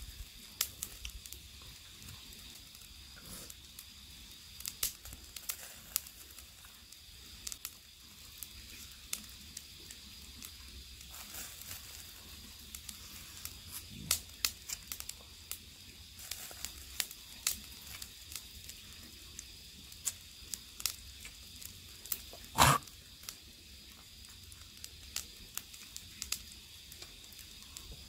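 Gizzard shad grilling over charcoal: a faint steady sizzle with scattered small crackles and pops, and one louder short sound about three-quarters of the way through.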